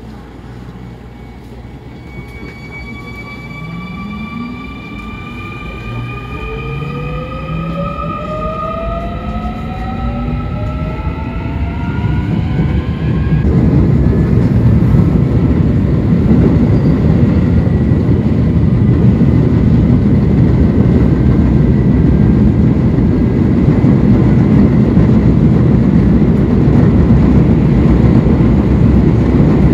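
Electric subway train pulling away and accelerating: the traction motors whine in several tones that glide steadily upward in pitch while the rumble grows louder. About 13 seconds in the whine cuts off and the loud, steady rumble of wheels on rail at running speed carries on.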